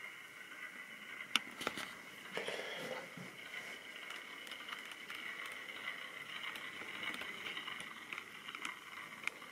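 Small electric model railway locomotive running along the track, its motor and gears giving a steady high whirr. A few sharp clicks come about a second and a half in, and a short rustle follows.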